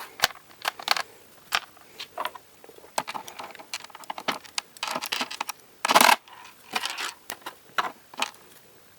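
Small metal screws and a screwdriver clicking, scraping and rattling against a laptop's plastic back cover as the screws are put back in, with a louder rattle about six seconds in.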